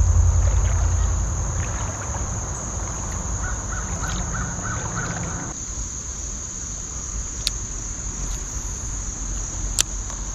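Insects droning in one steady high note. A low rumble stops about halfway through, and two sharp clicks come near the end.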